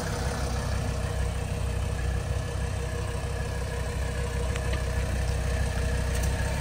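1983 Mercedes-Benz 300CD's 3.0-litre turbodiesel inline-five running steadily at low speed as the car rolls into a parking space: a low rumble with fainter steady tones above it.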